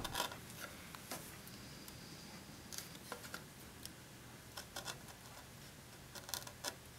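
A chisel paring thin shavings from a cherry molding: a scatter of short, faint scraping cuts, about eight over the few seconds.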